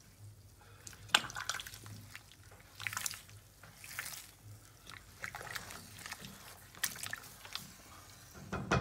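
Stew being stirred in a cast iron Dutch oven: vegetables and liquid sloshing in short, scattered strokes, with light scrapes of the utensil against the pot, over a low steady hum.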